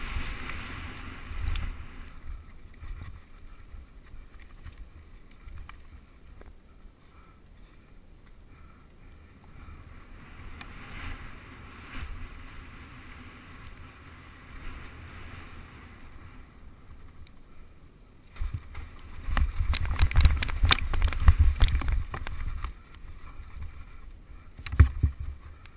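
Mountain bike descending a rough forest trail: wind buffeting the microphone and the tyres and frame rattling over roots and rocks. A spell of hard knocking and jolts comes about 19 to 22 seconds in, and another jolt comes near the end.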